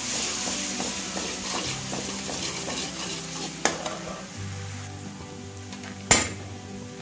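Chopped garlic sizzling in hot oil in a metal kadhai, stirred with a steel spoon that scrapes and clinks against the pan. There is a sharp clink about three and a half seconds in and a louder one about six seconds in.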